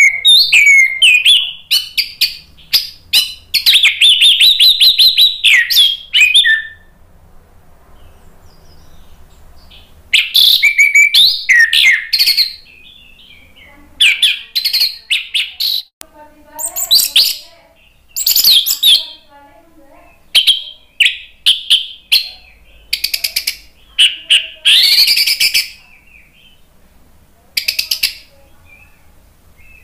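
Orange-headed thrush (anis merah) singing loud, varied whistled phrases with rapid runs of notes. A long burst of about six seconds comes first, then shorter phrases of one to three seconds with pauses between them.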